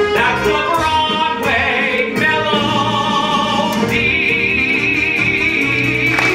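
Male voices singing a brassy Broadway show tune with a pit orchestra. The voices and orchestra hold a long note from about four seconds in.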